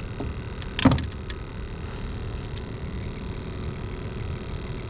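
A just-caught bluegill and tackle being handled aboard a kayak: one sharp knock about a second in, then a few light clicks, over a steady low hum.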